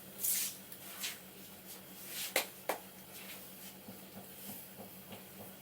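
Barber's hands working over a head in an Indian head massage: a short hiss near the start, soft rubbing and ticks, then two sharp light slaps close together a little before the middle.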